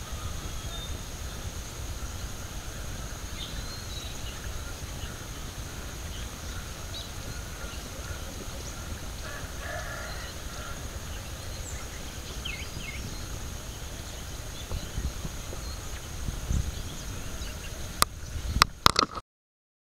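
Outdoor ambience: wind rumbling on the microphone, a steady thin high hum, and scattered bird calls, with a brief louder call about halfway through. A few sharp clicks come near the end, then the sound cuts off.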